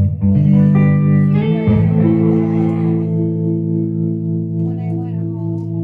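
Guitar music: chords that change twice in the first couple of seconds, then the last chord is left ringing and slowly fading.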